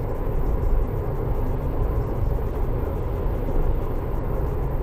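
Steady engine and tyre road noise heard from inside a car driving at highway speed.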